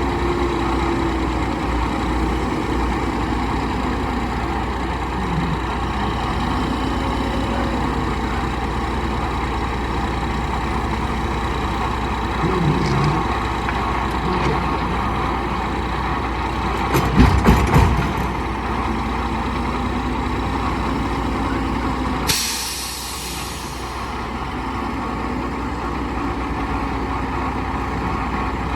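Diesel engines of a JCB 3CX backhoe loader and a Kenworth T800 dump truck running steadily. About seventeen seconds in comes a loud burst of clattering knocks as quarry stone drops into the truck's dump bed. About five seconds later the truck's air brakes let out a sharp hiss lasting about a second and a half.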